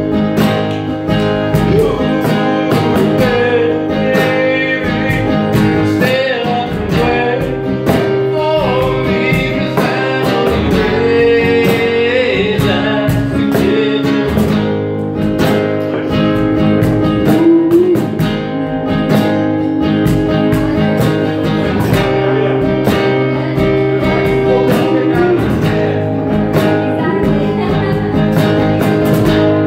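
Live acoustic rock: a man singing over a strummed acoustic guitar, with a cajon keeping a steady beat.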